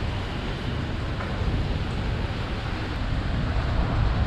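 A vehicle driving slowly through a brick-lined tunnel: a steady low engine and tyre rumble on a wet, rough floor, growing a little louder near the end.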